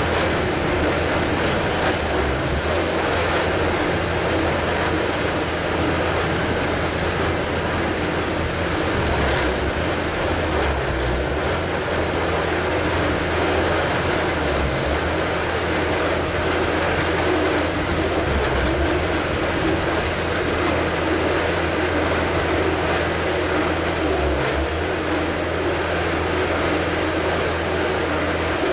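Truck-mounted Highway HHF pressure digger drilling into rocky ground, its power unit running steadily under load. A heavy, even mechanical rumble with a constant low hum.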